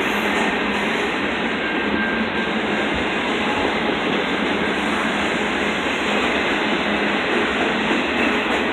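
Double-stack intermodal freight cars rolling past close by: a steady, loud noise of steel wheels on rail and rattling cars.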